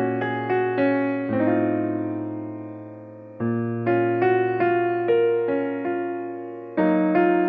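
Background music played on piano: gentle chords and single melody notes, each struck and then fading, with one chord left ringing and dying away for about two seconds near the middle.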